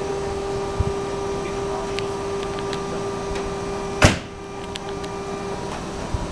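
Station platform departure signal: one steady electronic tone that rings for about five and a half seconds before stopping, beside a stopped Keikyu 1500 series train. A single sharp knock comes about four seconds in.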